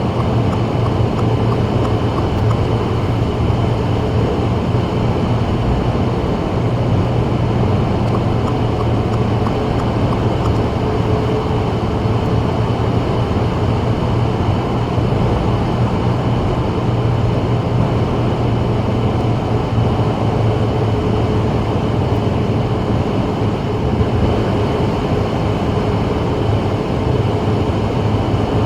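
Steady road noise of a 2024 Subaru WRX driving on a rain-wet freeway: continuous tyre hiss over a low, even drone of engine and road, with no change in speed.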